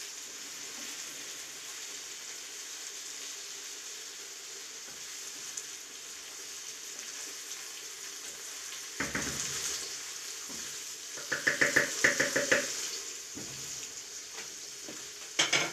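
Potatoes, vegetables and sausage sizzling steadily in a frying pan. From about nine seconds in, a wooden spatula stirs them, scraping and clacking against the pan in a quick run of knocks, with one sharp knock near the end.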